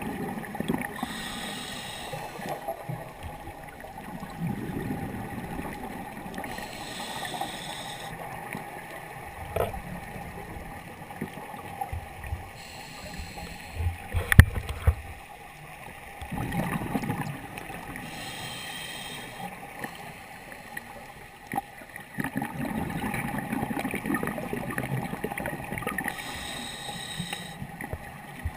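Scuba diver breathing through a regulator underwater: a hiss on each inhale roughly every five to six seconds, alternating with gurgling bursts of exhaled bubbles. A single sharp knock about halfway through.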